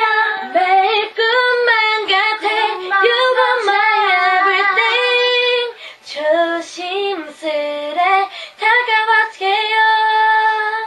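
Women's voices singing a pop song live into microphones, several voices together, ending on a held note that stops near the end.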